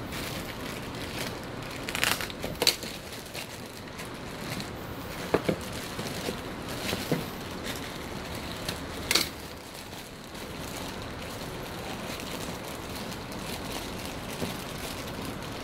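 Clear plastic bags crinkling and rustling as the parts of a boxed figure are unwrapped, with a few sharp clicks and taps, the loudest about two seconds in and about nine seconds in, over a steady background hiss.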